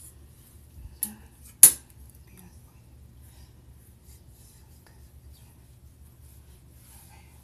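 Handling noise on a phone's microphone: two sharp knocks about a second and a second and a half in, the second louder, over faint rustling and a low steady hum.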